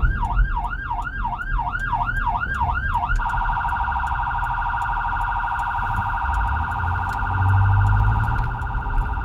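Whelen 295SL100 electronic siren on the responding vehicle, sounding a fast yelp of about four sweeps a second, then switching about three seconds in to a steady buzzing tone that holds for the rest of the time.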